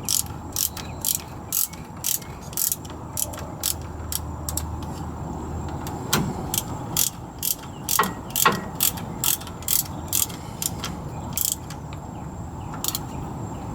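Ratchet wrench with a 1/2-inch socket clicking on its back-swings, about two clicks a second, as the two wheel cylinder mounting bolts are snugged up; a few heavier knocks come around the middle.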